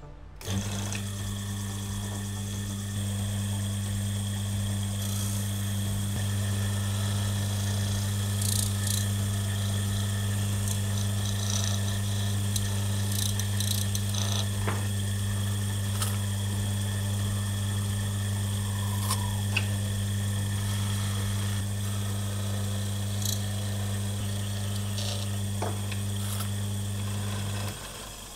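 Electric motor of a jeweller's spindle switched on, giving a steady low hum as it spins a gold bangle on a plastic mandrel. Faint scrapes and clicks come from a steel tool pressed against the inside of the turning bangle to pre-polish it. The motor cuts off near the end.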